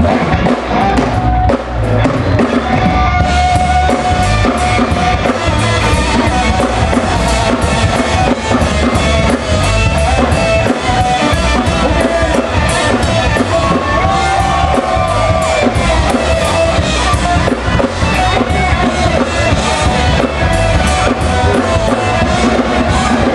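Live rock band playing loud: electric guitar holding sustained lead notes over a steadily pounding drum kit.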